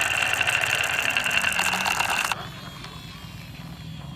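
Many glass marbles clattering against each other and the grooves of a wooden zigzag slope, a dense run of rattling clicks that cuts off abruptly about two seconds in. After that only a faint low hum remains.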